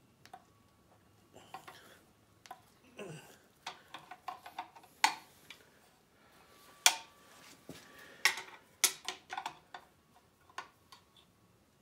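Metal clinks and taps as hand tools and the oil pump pickup tube knock against the cast-iron engine block while the pickup is worked into the pump: a scatter of sharp clicks, a few louder ones ringing briefly.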